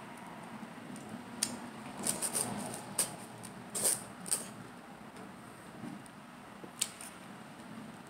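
Close-miked biting and chewing of fresh pineapple: a scattering of sharp, wet crunches and mouth clicks, bunched between about two and four and a half seconds in, with one more near the end.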